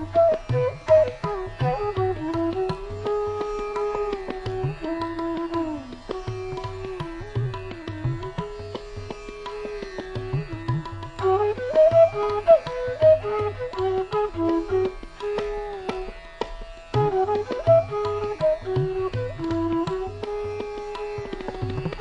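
Instrumental background music: a single melody that slides between held notes over a steady pattern of low drum strokes.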